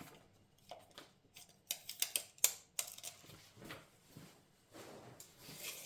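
Scattered light clicks and knocks from objects being handled, bunched about a second or two in, then a soft rustling near the end.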